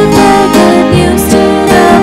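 A hymn sung to strummed acoustic guitar, with the guitar chords carrying steadily and the singing lighter beneath.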